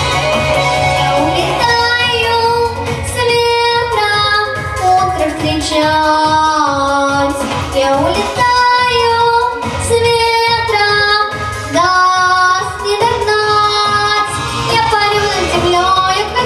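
A girl singing over an instrumental backing track with a regular beat. Her voice comes in about two seconds in, after a short instrumental bar, and holds long notes.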